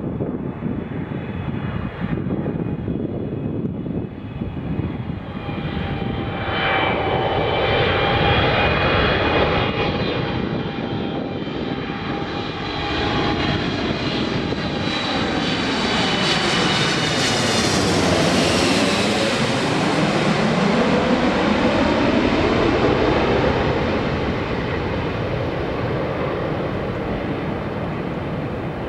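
Boeing 777-200ER's twin jet engines on landing approach, passing low overhead: a rushing hum with high whining tones that grows louder, drops in pitch a little past the middle as the airliner goes over, then eases off.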